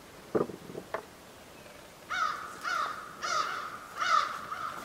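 A crow cawing four times in quick succession, starting about two seconds in. A few faint clicks come just before.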